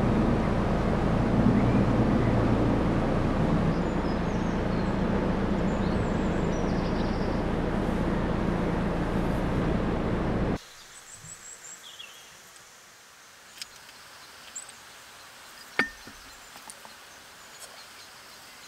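A narrowboat's diesel engine running steadily, a low hum under a rushing noise, which cuts off abruptly about ten seconds in. After it, quiet outdoor ambience with birds chirping and a few sharp clicks.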